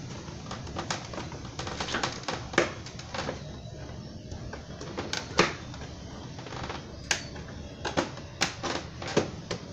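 Plastic fairing panels of a Kymco Super Z 125 scooter being pressed and worked into place by hand: a string of irregular sharp plastic clicks and knocks as the panel edges and clip tabs are pushed home, thickest in the second half.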